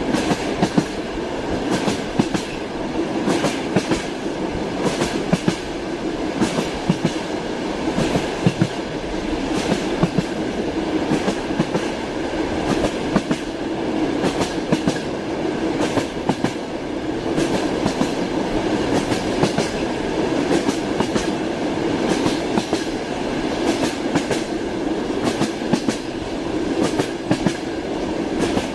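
Railway carriage wheels clacking over rail joints, sharp knocks coming in small groups about every second over the steady rumble of the moving train.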